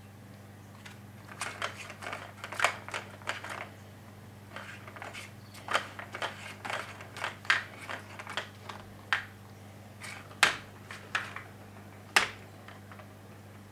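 Cats' paws batting at a Catit Design Senses Play Circuit, a plastic ball track: irregular clicks and knocks as the ball is knocked along inside the track and paws strike the plastic, coming in quick clusters with a few sharper single knocks near the end.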